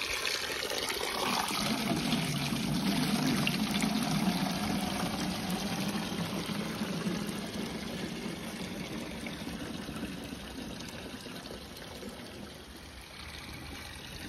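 Spring water pouring from a pipe spout, first splashing into a stone trough, then soon after the start running into a plastic canister, filling it with a steady, deeper drumming that slowly grows quieter.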